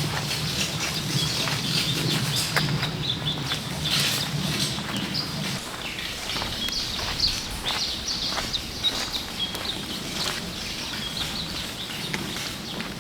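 Small birds chirping repeatedly, with scattered light knocks and taps. A low hum underneath stops about five and a half seconds in.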